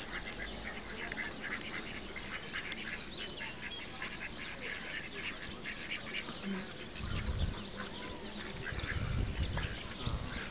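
A group of mallards on the water quacking, many short calls overlapping throughout. Two low rumbles come in the second half.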